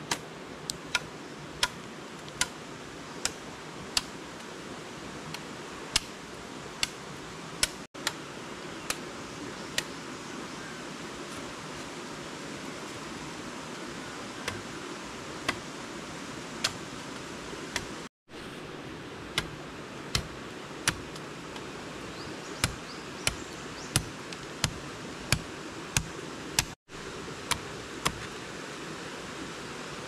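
Machete chopping into a green wooden pole: sharp, separate strikes at irregular intervals, coming in quicker runs near the end, over a steady background hiss.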